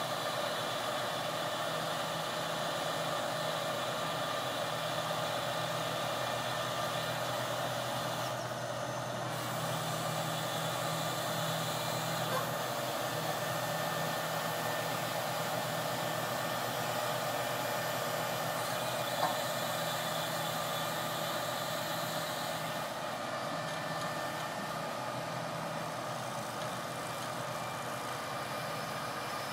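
Boom truck's diesel engine running steadily to power the crane's hydraulics while the crane lifts a heavy pallet, with a couple of faint clicks.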